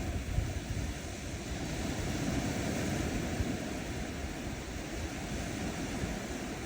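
Gentle ocean waves washing onto a sandy beach: a steady surf wash that swells a little in the middle and eases again.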